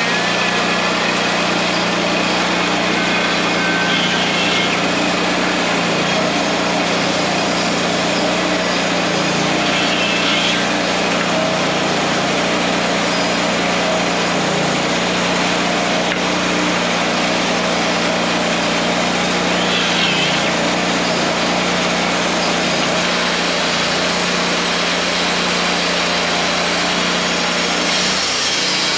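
WoodMizer LT40 Wide band sawmill running steadily, its band blade cutting through a hickory log over a constant engine hum. The sound eases off near the end.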